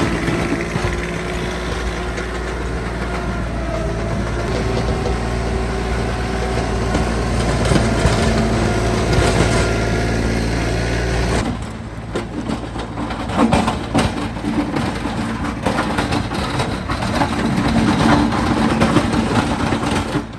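Vehicle engine running steadily. About eleven seconds in, the sound changes abruptly to a rougher, uneven noise with repeated knocks.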